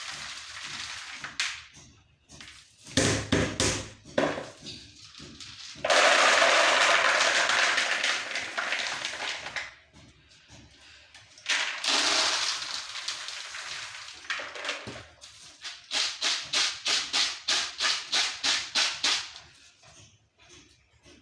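Fresh maize kernels being winnowed in a tray: rushes of kernels rattling and sliding, then a run of quick, rhythmic tosses, about three a second, near the end.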